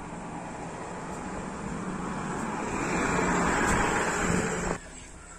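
Vehicle engine noise swelling steadily louder for about four seconds, then cut off abruptly near the end.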